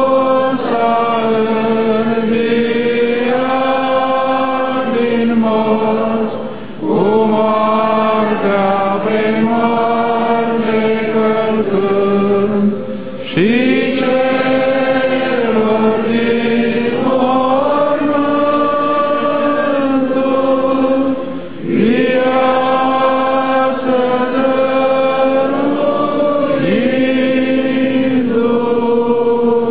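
Orthodox chant: voices sing long, drawn-out melodic phrases, with a short break for breath about every seven seconds.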